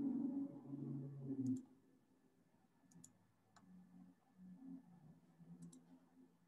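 Near quiet with a few faint, sharp clicks spread through it, and a low steady hum that cuts off about a second and a half in.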